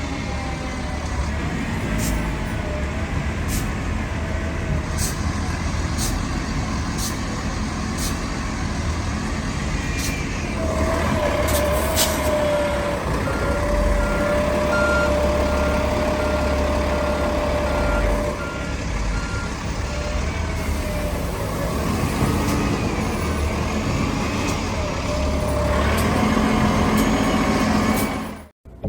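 Street traffic at a downtown bus stop: buses and other heavy vehicles running with a steady engine rumble, with a held tone and a run of short beeps in the middle. The sound cuts off abruptly near the end.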